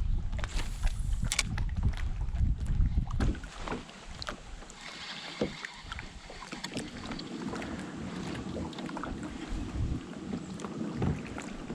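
Wind buffeting the microphone on a fishing kayak, strongest in the first three seconds, with scattered small clicks and knocks from the boat and gear.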